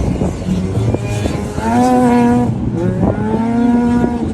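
Rotax 494 two-stroke snowmobile engine in an F-Modified autocross car running at high revs through its CVT: twice the note sweeps up, about one and a half and three seconds in, then holds at a steady pitch while the car accelerates.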